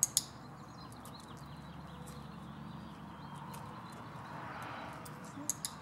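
Footsteps of a dog and a person on a concrete driveway, with the dog's claws clicking and tapping on the concrete. Two sharp clicks come right at the start and another pair near the end, over faint steady outdoor background noise.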